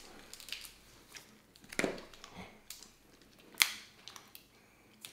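Snow crab leg shells being cracked and snapped apart by hand: scattered sharp cracks and crackling of shell, with one loud snap about three and a half seconds in.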